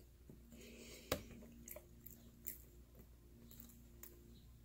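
Faint chewing of a mouthful of pizza with the mouth closed: soft mouth sounds, with a sharp click about a second in and a few softer smacks after it.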